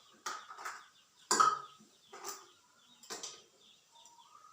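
Feeding-bottle parts being set into a sterilizer with tongs: about five separate hard clacks against the pot, the third, about a second and a half in, the loudest.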